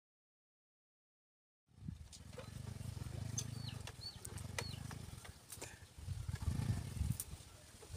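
Motorcycle engine running at a distance, a low rumble that starts about two seconds in after silence and grows patchy in the second half. A few short bird chirps come through near the middle.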